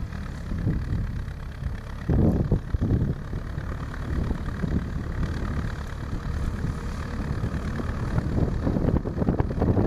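Zetor 7011 tractor's diesel engine running steadily as it pulls a grass mower across a meadow, with loud low rumbling surges about two seconds in and near the end.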